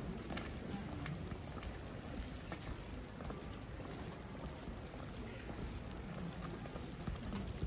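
Steady rain with water trickling and dripping on a wet street, a few light ticks scattered through it.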